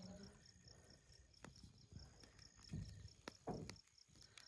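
Faint night ambience: an insect chirps high and evenly, about four times a second, while a small wood fire gives a few sharp crackles, with two soft thumps about three seconds in.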